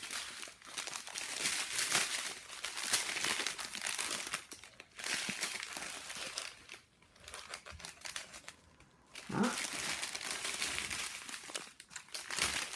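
Small plastic bags of diamond painting drills crinkling as they are handled and sorted, in several spells with short pauses between.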